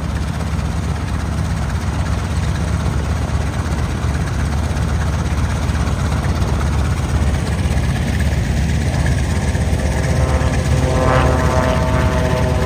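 Piston-engined propeller aircraft running at high power, a loud steady drone. In the last couple of seconds a higher-pitched engine note grows louder as an aircraft comes closer.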